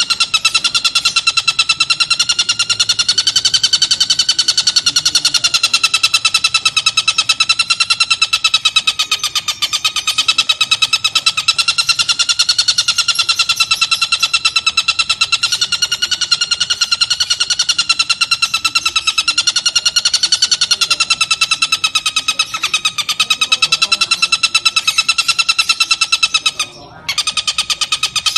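Oriental dollarbird (tengkek buto) giving a long, continuous rapid chattering rattle, its pitch wavering slightly, broken once by a brief gap about a second and a half before the end.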